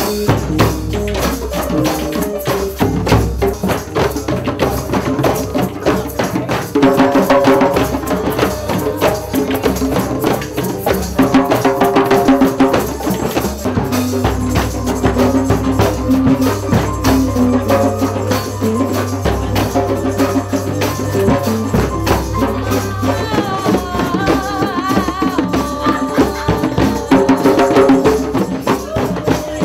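Drum circle jam: a dense, steady rhythm of hand drums and a drum kit with cymbals, with an acoustic guitar playing chords over it.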